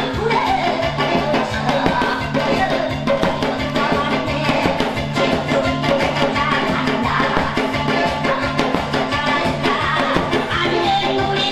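Upbeat Korean folk-style music with a fast, steady drum beat and a singing voice, with a janggu (hourglass drum) struck with a thin stick.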